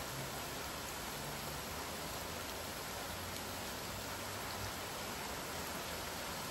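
Steady rain falling, an even hiss with no single drops or thunder standing out.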